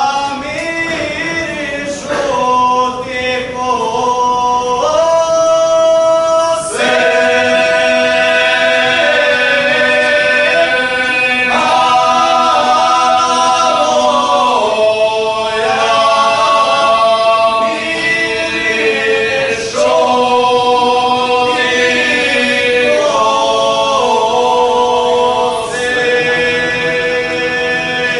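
Men's voices singing a traditional Serbian folk song a cappella in several parts, holding long notes over a steady low note. The singing is thinner at first and swells to the full group a few seconds in.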